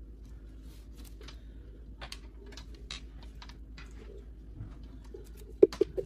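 Light clicks and rustles of a new PC case and its small parts being handled on a table, with a sharper knock about five and a half seconds in.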